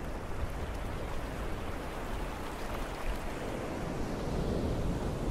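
Steady rush of surf washing onto a sandy beach, mixed with a fluttering low rumble of wind on the microphone.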